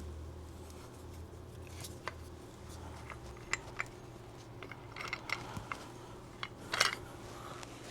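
Scattered light metallic clicks and a short scrape near the end as a rear sight is nudged into position on a pistol slide with small hand tools.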